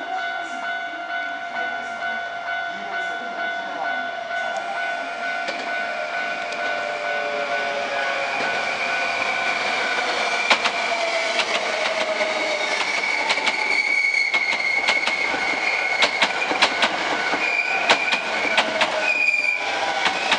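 Hankyu 8000 series electric train arriving and slowing, with the whine of its Toshiba VVVF inverter motor drive falling slowly in pitch as it brakes. From about halfway, the wheels click sharply over rail joints and points as the cars pass close by.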